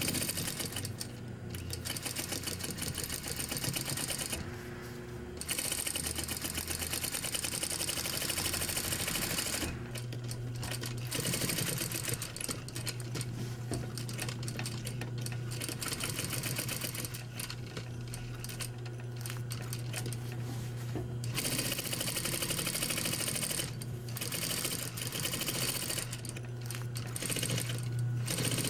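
Industrial single-needle lockstitch sewing machine stitching in spurts of several seconds with short stops between, over a low steady hum.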